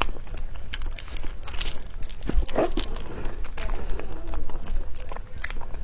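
Close-miked eating sounds: chewing and biting, with many small clicks and crackles from the mouth and food.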